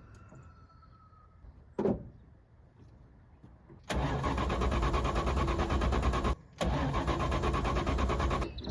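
A car engine being cranked over by its starter in two bursts of a few seconds each, an even rapid churning with a short break between them. A single short knock comes about two seconds in, before the cranking.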